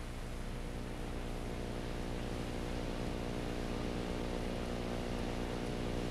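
Engine running at a steady speed, a low even drone, from the equipment that pumps asphalt tack coat through hoses to a hand spray wand.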